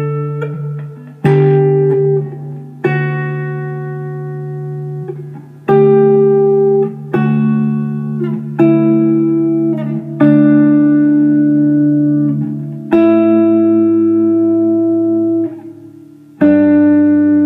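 Guitar in drop D tuning playing a slow ambient riff: picked two-note shapes high on the neck over a droning D string, each left to ring, with a new one every second or two. It is played clean, before any delay effect is switched on, and a low D comes in near the end.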